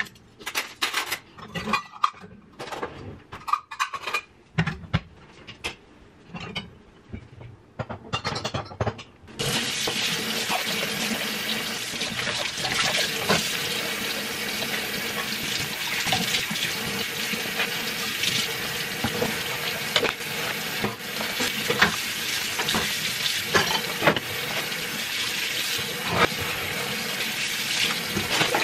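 Dishes clattering and clinking as they are handled and put away. About nine seconds in, a kitchen tap is turned on and runs steadily into a stainless steel sink, with dishes and a pot clinking under the stream as they are washed by hand.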